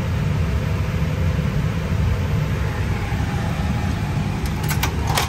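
Steady low hum and hiss of an Airbus A320 cockpit powered on the ground by external ground power, with its avionics and displays running. A few sharp clicks near the end.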